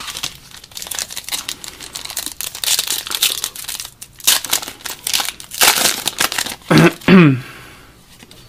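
Foil trading card pack wrapper crinkling and tearing as it is pulled open by hand, in many quick rustles. Near the end comes the loudest crinkle with a couple of short falling squeaks, and then the rustling stops.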